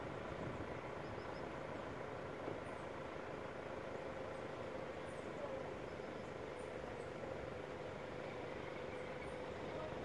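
Steady outdoor ambience: a constant low hum under faint, brief high chirps of small birds every second or so.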